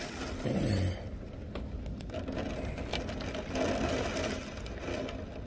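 Heavy rain beating on a small wooden shooting house, heard from inside as a dense, even patter of drops.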